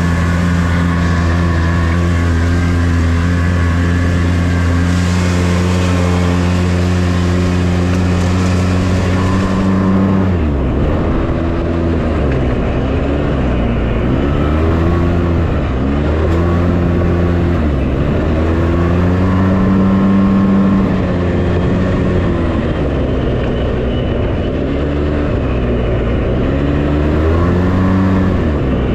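Polaris RZR S 800's twin-cylinder engine running at steady revs, with a hiss of splashing water while the car fords a river. About ten seconds in, the water stops and the engine starts revving up and down again and again, every second or two, as it drives over a dirt trail.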